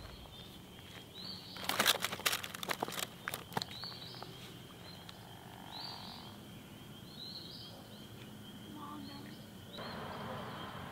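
Quiet outdoor ambience: short high chirps, about one a second, over a faint steady high tone. A quick cluster of clicks and knocks comes about two seconds in, and a soft hiss rises near the end.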